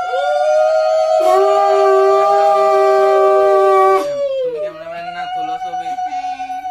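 Conch shells (shankha) blown in long, steady, overlapping notes, each sagging in pitch as the breath runs out. A lower, breathier note joins about a second in and cuts off abruptly near the four-second mark.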